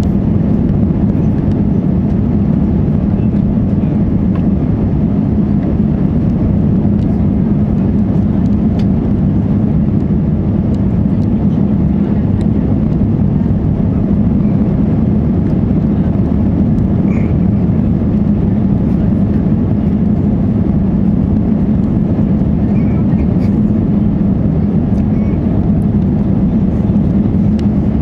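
Loud, steady vehicle running noise that stays even and unchanging throughout.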